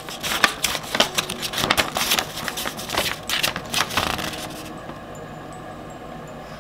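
A printed paper sheet rustling and crackling as it is held up and handled, lasting about four and a half seconds before it stops, leaving only faint room tone.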